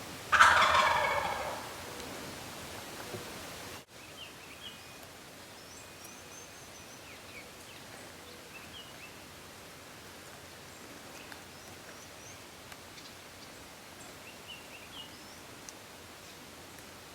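Wild turkey gobbler gobbling once, loud and close, about a second and a half long. After a few seconds there are faint songbird chirps against quiet woodland background.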